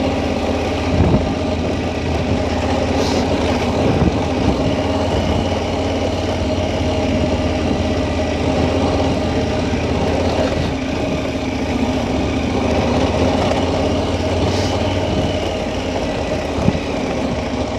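KTM 1290 Super Adventure's V-twin engine running steadily at low speed while being ridden off-road, with a few short knocks over the rough ground.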